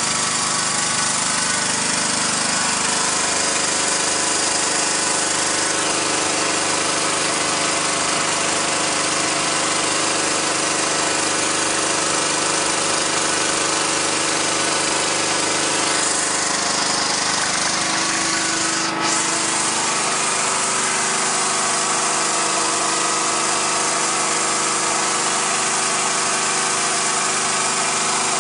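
Small 3 kW generator's 6.5 hp single-cylinder engine running steadily under a load of light bulbs. A short click comes about nineteen seconds in, and the engine note shifts slightly around then.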